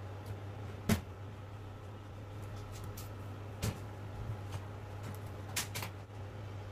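Four short, sharp clicks and taps from handling a disassembled phone on a repair mat, over a steady low hum.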